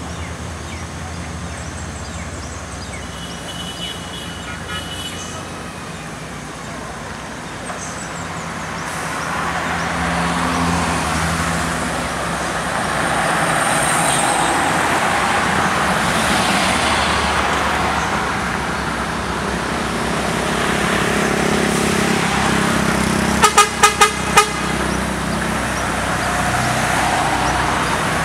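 Passing road traffic: cars go by, then a heavy diesel truck grows louder as it climbs toward the camera. About three-quarters of the way through, a vehicle horn gives four short toots in quick succession.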